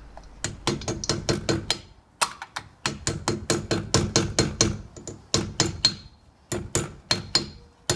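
A mallet tapping a new dust cap onto a rear wheel hub. The taps come in quick runs of sharp strikes, about four or five a second, with short pauses between the runs.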